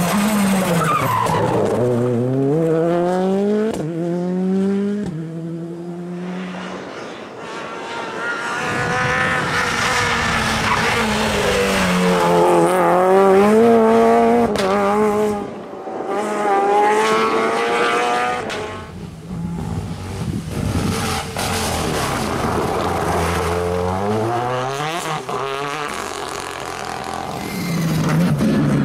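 Rally cars on a closed stage passing one after another, engines revving hard through the gears, the pitch climbing and dropping back with each shift. Several separate cars are heard in turn.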